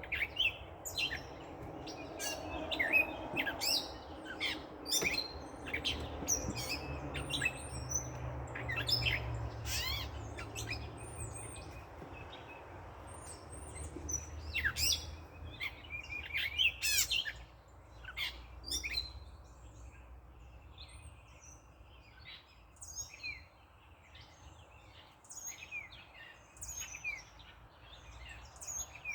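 Many songbirds chirping and calling in quick, overlapping notes, thinning out in the last third. A low rumble of passing traffic rises and fades in the first half.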